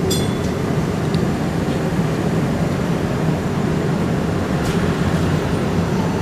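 A Canadian Light Rail Vehicle (CLRV) streetcar running along the track, heard from on board: a steady low rumble of motors and wheels on rail, with a few brief high squeaks.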